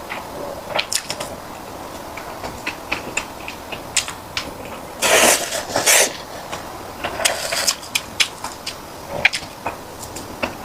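Close-miked eating sounds: chewing sticky rice cake with many short, wet mouth clicks and smacks, and a louder rustling burst about five seconds in that lasts about a second.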